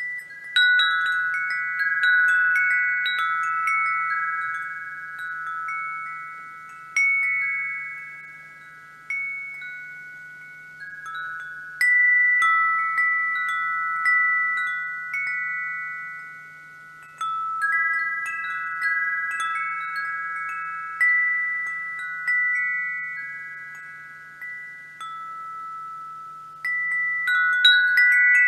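Wind chimes ringing: clusters of strikes come every one to three seconds at uneven intervals, several high pitches overlapping, each note left to ring out slowly.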